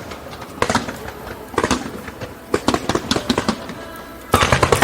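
Fireworks shells bursting overhead: scattered single bangs, then about four seconds in a sudden dense volley of rapid bangs and crackles.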